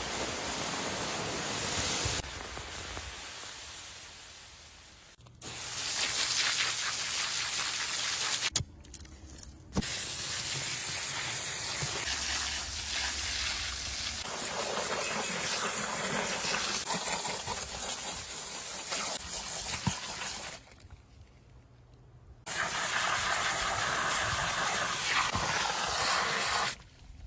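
A series of separate water sound-effect clips: rushing, splashing water noise in about five stretches that start and stop abruptly, one fading away over a few seconds, with short quieter gaps between.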